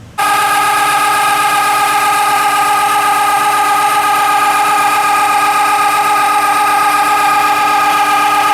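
Volkswagen Beetle's engine idling steadily with a constant whine, starting abruptly just after the opening. The engine now has its mount secured with new bolts and brackets and sounds a lot better.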